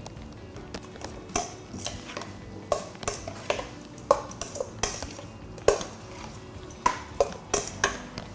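Metal spoon clinking and scraping against a stainless steel mixing bowl, about a dozen irregular strokes, as minced chicken salad is stirred and mixed.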